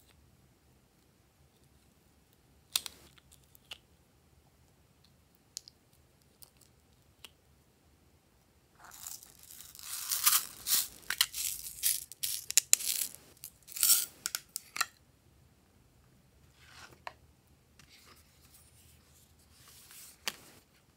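Plastic cosmetic packaging being torn and crinkled open by hand, a crackly burst lasting several seconds in the middle. A few sharp plastic clicks come before it, and quieter handling of a cardboard palette box comes near the end.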